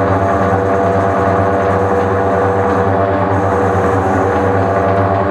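Centre lathe running with a shaft spinning in its three-jaw chuck: a steady, unchanging hum from the motor and headstock gearing.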